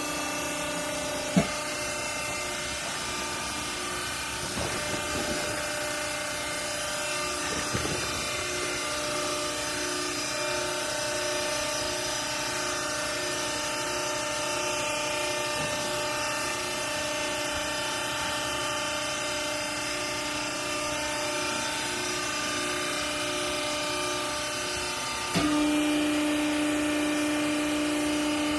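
Horizontal wiper-rag baler running, its electric motor and hydraulic pump giving a steady hum with a sharp click about a second and a half in and a few light knocks. Near the end the hum steps up louder with a stronger low tone.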